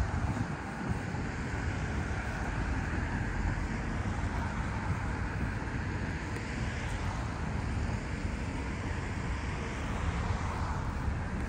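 Wind buffeting the microphone outdoors: a low, uneven rumble over a steady rushing hiss.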